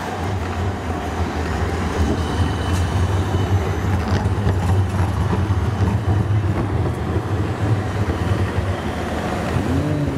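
An articulated city bus driving past close by: a steady low engine hum with road noise. Near the end, motorcycle engines rise in pitch as they accelerate past.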